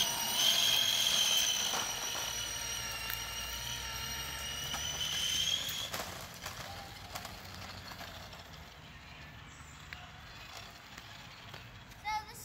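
Razor Power Core E100 electric scooter's hub motor whining as it spins up under throttle from a kick start. The high steady whine fades and stops about six seconds in.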